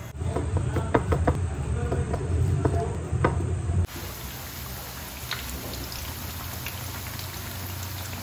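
Battered strips deep-frying in hot oil in a pan: sharp crackling and popping as fresh batter goes into the oil, then, after a cut about four seconds in, a steady sizzle with occasional small pops. A low steady hum runs underneath.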